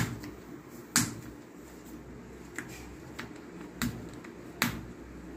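Hands pressing and tapping balls of dough on a clay rolling board: a few sharp, short clicks, four louder ones spread out (one at the start, one about a second in, two more near the end) with fainter ticks between.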